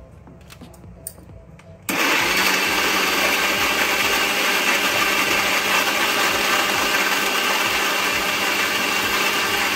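Havells mixer grinder blending chopped strawberries to a puree in its stainless steel jar: after a few light clicks, the motor starts abruptly about two seconds in and runs loud and steady.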